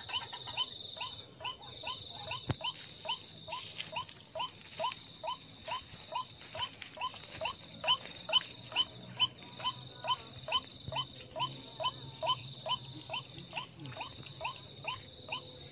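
Crickets and other night insects trilling steadily, over a short rising call repeated about twice a second. About two and a half seconds in there is a click, then a higher trill joins and the sound gets louder.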